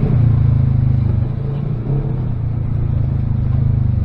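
Side-by-side UTV engine running on the trail, heard from inside the cab; it eases off a little over a second in and picks back up about two seconds in.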